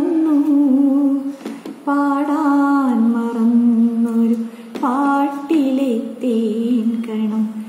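A woman singing unaccompanied, holding long notes that slide from pitch to pitch, with short breaks for breath about a second and a half and nearly five seconds in.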